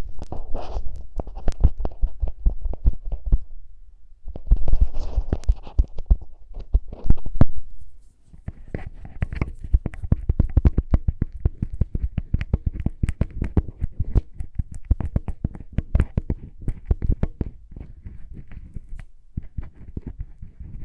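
Close-miked ASMR lip balm sounds: rapid crackly tapping and scratching on the containers, with dull low thuds from handling against the microphone.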